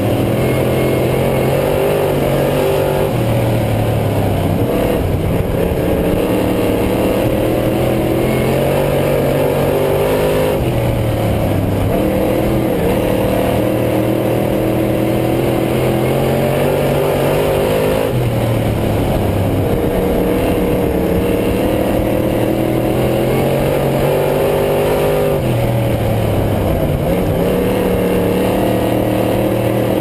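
Dirt late model race car's V8 engine running hard at racing speed: the revs sag as the driver lifts for each turn and climb again down the straights, about four times.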